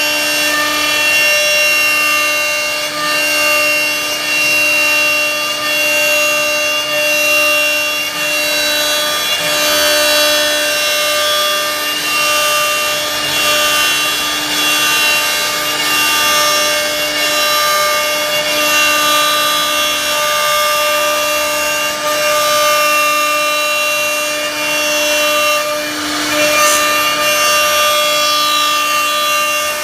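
CNC router spindle running with a steady whine while its bit cuts into wood, with a rasping cutting hiss underneath.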